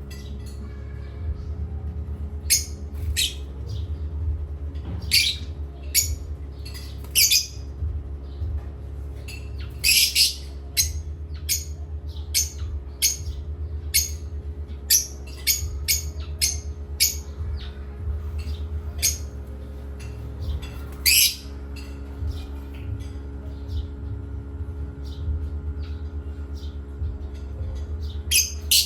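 Parrots squawking and chirping in many short, sharp, high-pitched calls, with a few louder squawks, over a steady low hum.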